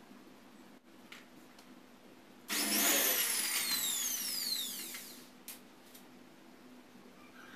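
A power drill runs for about two and a half seconds, starting suddenly about two and a half seconds in, its whine falling steadily in pitch before it stops. Light handling clicks come before it.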